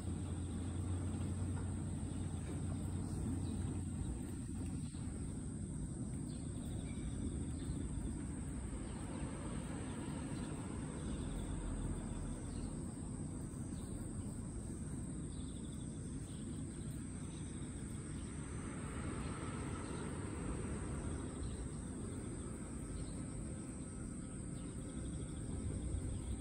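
Outdoor ambience: a steady high-pitched insect trill over a low background rumble.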